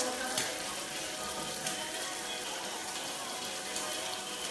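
Food frying in hot oil on a gas stove, a steady sizzling hiss.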